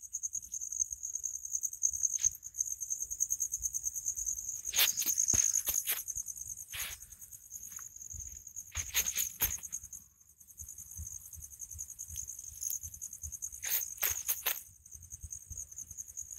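Night insects trilling steadily at a high pitch with a fast pulse, with scattered short rustling crunches of footsteps in dry grass and leaves.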